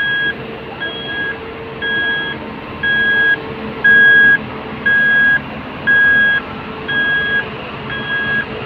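A tipper truck's reversing alarm beeping about once a second, each beep about half a second long, as the truck backs up. Under it, the truck's diesel engine drones steadily.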